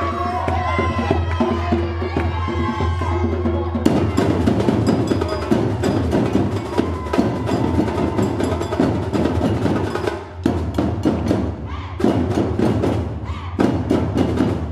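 Voices singing over a steady low hum, then about four seconds in a percussion ensemble comes in with a loud, fast, dense drum rhythm. The drumming pauses briefly twice near the end.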